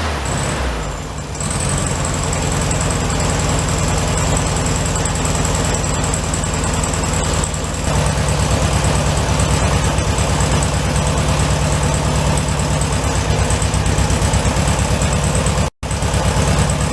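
A 1967 VW Beetle's air-cooled 1500 flat-four engine idling steadily as it warms up, with no excessive valve ticking, just after being refitted. It gets a little louder about eight seconds in.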